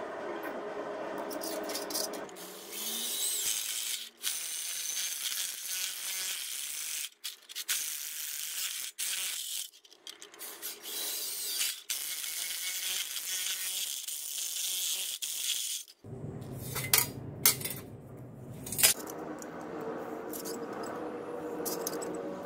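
Power drill boring a row of holes through a metal plate: a high, grinding whine that stops briefly between holes. Near the end, a few sharp knocks and clicks from handling the plate.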